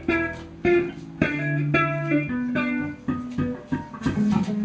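Electric guitar picking single notes one after another, about two a second, each ringing briefly before the next.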